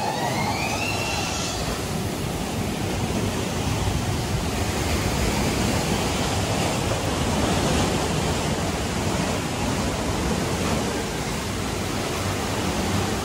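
Steady rushing and churning of water around a round river-rapids raft as it rides along the rapids channel.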